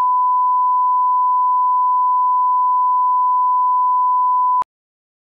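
Steady 1 kHz line-up reference tone played with SMPTE colour bars at the head of a broadcast tape, a single pure tone for setting audio levels. It cuts off suddenly about four and a half seconds in.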